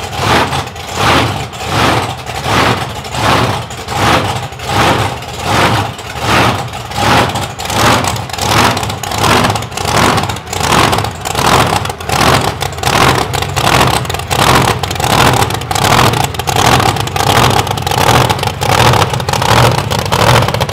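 Monster truck engine idling loud with a heavy, regular lope, surging a little more than once a second, as the truck creeps down the ramps out of its trailer.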